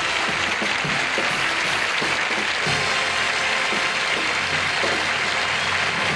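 Studio audience applauding over music with short low notes.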